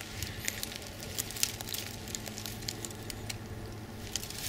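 Light, irregular crackling and rustling of dry vegetation being brushed or trodden, over a low steady hum.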